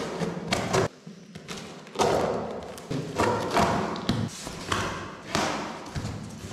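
Corrugated cardboard shipping box being pulled open by hand: a series of thumps and knocks with scraping and ripping of the flaps and tape.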